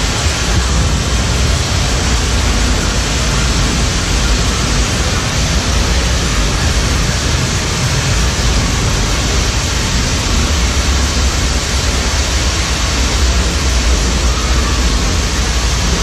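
Steady rush of falling water: an indoor rainforest exhibit's artificial waterfall pouring hard during a simulated rainstorm, with a low rumble underneath.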